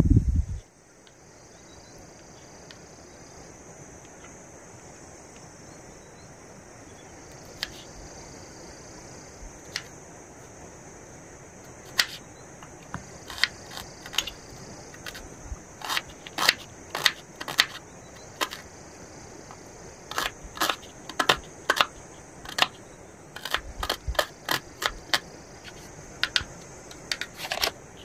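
Kitchen knife chopping on a wooden cutting board as small onions are cut: sharp taps, scattered at first from about halfway in, then in quick runs toward the end. A single low thump right at the start.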